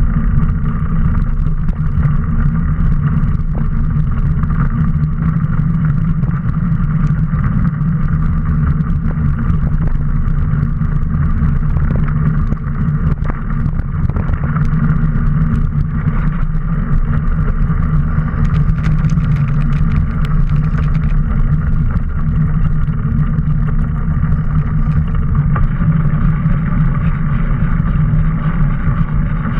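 Steady rumble of wind and trail noise on a bike-mounted action camera as a mountain bike rolls over a dirt trail, with scattered clicks and rattles from the bike.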